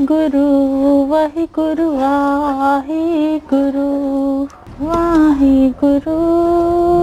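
A woman's voice singing long, held notes in phrases with short breaks between them.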